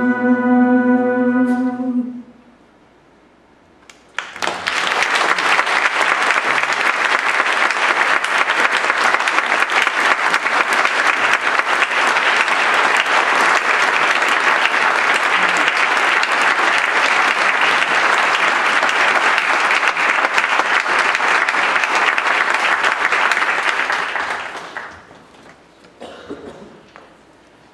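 The band's final held note, sung and played together with the horns, stops about two seconds in. After a short pause, an audience applauds for about twenty seconds, then the applause dies away near the end.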